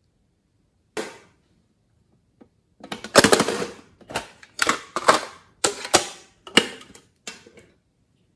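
Sharp, irregular clicks, taps and rattles from a pink tin novelty clock being handled: one click about a second in, then a dense run of clicking for about five seconds.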